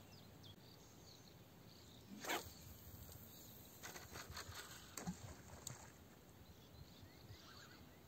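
Quiet outdoor ambience with a few faint handling clicks and one brief louder swish about two seconds in.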